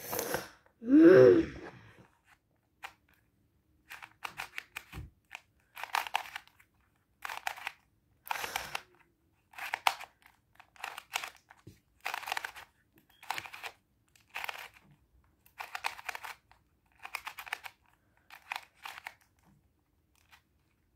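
Plastic 3x3 Rubik's cube being twisted by hand: a run of short crunching, clicking turns, about one a second, starting a few seconds in.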